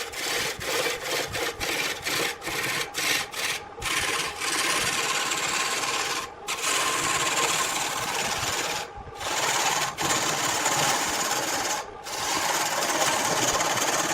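Turning tool cutting wood spinning on a lathe: a harsh scraping hiss in quick, choppy strokes for the first four seconds, then longer passes broken by brief pauses as the tool is lifted off.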